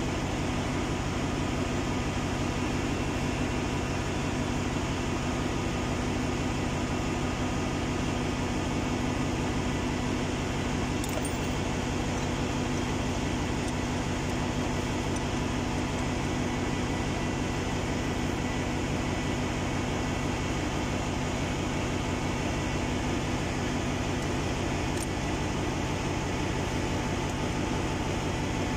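Steady machinery din of a ship's engine room: a constant drone over a fast, even low throb, unchanging throughout, with a couple of faint small clicks.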